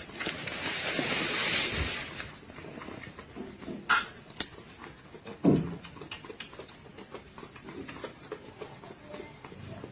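Kitten mewing briefly amid light rustling and handling noises, with a noisy rustle in the first two seconds and two short cries about four and five and a half seconds in.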